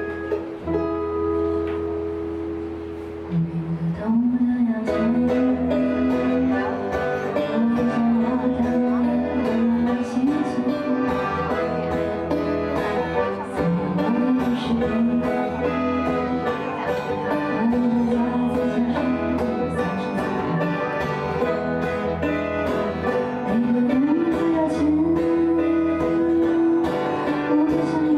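Live duo of button accordion and acoustic guitar. The accordion holds a chord, then about four seconds in the guitar comes in with picked notes under a moving melody and the music fills out.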